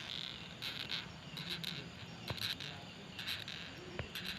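Batocerini longhorn beetle stridulating: a series of short raspy squeaks at irregular intervals, made by rubbing its thorax segments together.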